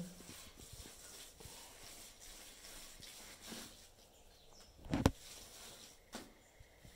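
Faint scraping and rubbing of bare hands spreading a cow-dung and soil mixture over an earthen floor. A single sharp thump about five seconds in, and a smaller one about a second later.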